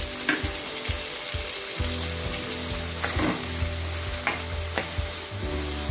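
Lemon pieces sizzling steadily as they fry in hot oil in an aluminium kadai, with a few sharp clicks of a spoon against the pan as they are stirred.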